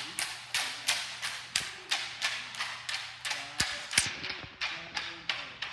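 Long tinikling poles being struck on the floor and clapped together by the seated players, a steady quick rhythm of sharp knocks, several a second.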